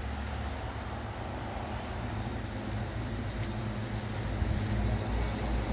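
Steady low rumble of distant engine noise, growing a little louder near the end.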